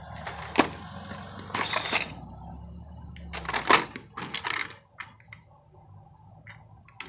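Tools and a metal tool chest drawer being handled: a sharp click, then clattering and sliding rattles around the middle, and a few lighter clicks near the end.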